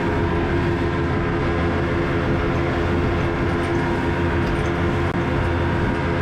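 Boat engine running steadily under way, a constant drone with a few held tones over wind and water noise.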